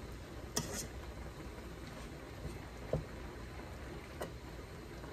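Three light clinks of a metal utensil against a stainless sauté pan as cabbage is stirred, over a low steady hum.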